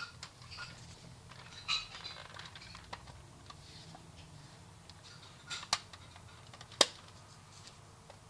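Plastic parts of a Bruder CAT telehandler toy clicking and clattering as they are handled, with two sharp clicks about a second apart, the second the loudest.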